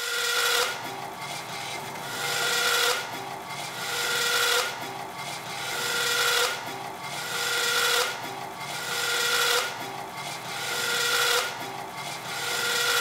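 Bandsaw blade cutting through aluminium flat stock, one short cut after another, about one every second and three-quarters. Each cut grows louder as the blade bites, rings with a high whine at its peak, then drops off as the piece comes free.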